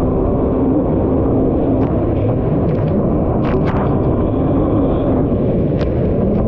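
Kawasaki SX-R 1500 stand-up jet ski's four-stroke inline-four engine running steadily and loudly, with water and wind noise. A few sharp knocks come through over it.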